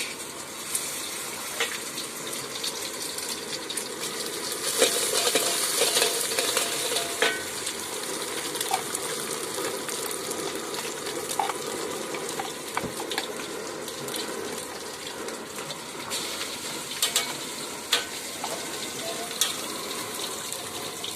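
Food sizzling in a pan while it is stirred, with scattered clinks of metal utensils. It is most likely nasi goreng (fried rice) being fried. The sizzle swells a little about four seconds in.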